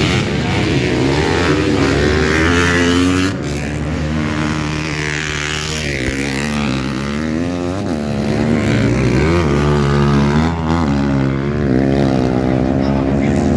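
250cc four-stroke motocross bikes racing on a dirt track, their engines revving up and dropping back again and again as riders work the throttle over the jumps and straights. More than one engine is heard at once.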